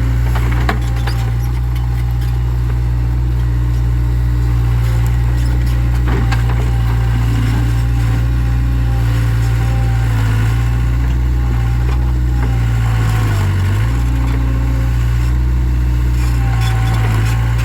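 Takeuchi TL26 compact loader's diesel engine running steadily at working speed, dipping briefly in pitch about thirteen seconds in as it takes a load. A few sharp knocks sound over the engine.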